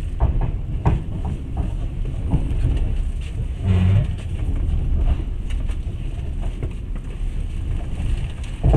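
Passenger train carriage running: a steady low rumble with irregular knocks and rattles, and a brief low hum about four seconds in.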